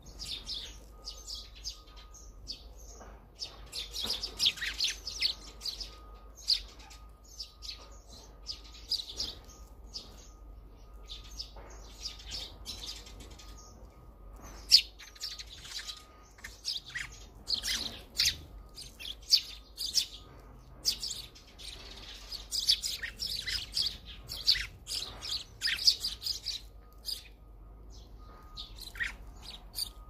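Eurasian tree sparrows chirping: clusters of quick, high chirps come again and again with short pauses between.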